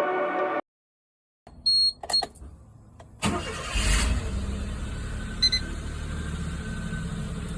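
Suzuki Jimny JA11's F6A three-cylinder engine starting: a few short high beeps, then it catches about three seconds in and settles to a steady idle. Background music cuts off just before.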